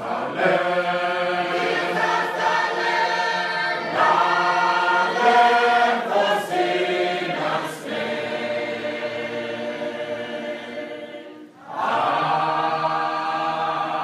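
Church congregation of men and women singing a hymn together in long, held phrases. The singing drops out briefly about three-quarters of the way through and then starts again.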